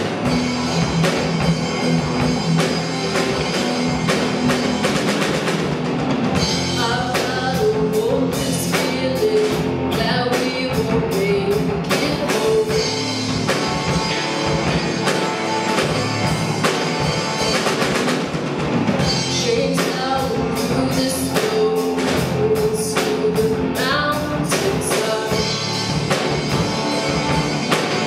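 Live rock band playing on drum kit, amplified electric bass and electric guitar, with a woman singing a melody over it from about six seconds in.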